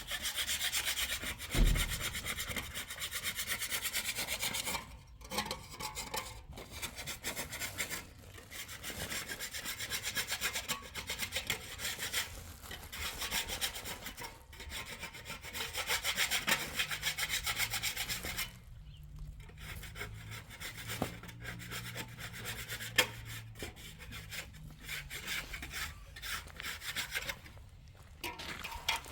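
Continuous rapid rasping strokes of a hand tool worked against a surface, stopping briefly a few times.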